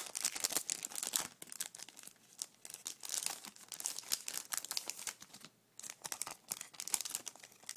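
Packaging of a stationery pack being handled and opened by hand: irregular crinkling with some tearing, pausing briefly about five and a half seconds in.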